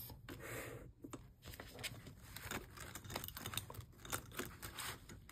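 Soft paper rustling and light crinkly taps, paper banknotes and binder envelopes being handled.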